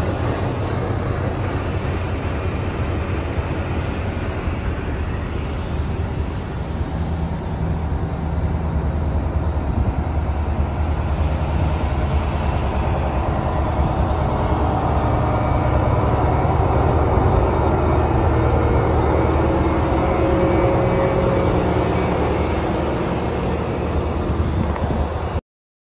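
Amtrak passenger train in motion: a steady rumble of the running train that grows a little louder in the second half, then cuts off suddenly near the end.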